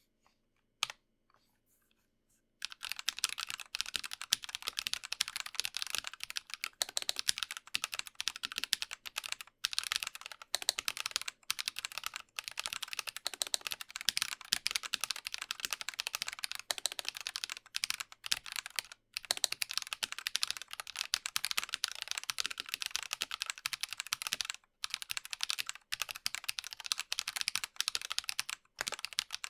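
Typing on a Dygma Raise split mechanical keyboard with lubed, filmed Drop Holy Panda tactile switches. After a single click near the start, fast continuous keystrokes begin about two and a half seconds in and run on, with a few brief pauses.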